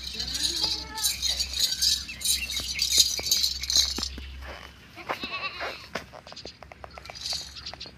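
A goat bleating, a couple of short wavering calls in the first second or so and another about five seconds in, over a jangling, rattling noise that stops about four seconds in.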